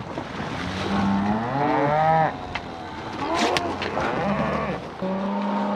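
Cattle mooing: several long, overlapping moos from the herd, one starting near the end.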